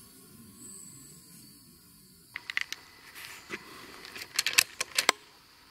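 A run of sharp clicks and taps in quick clusters, starting about two seconds in, the loudest pair near the end.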